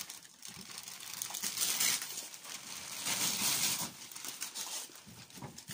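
Christmas wrapping paper being torn off a boxed present and crinkled, in irregular rustling spells, the main ones about a second in and again around three seconds.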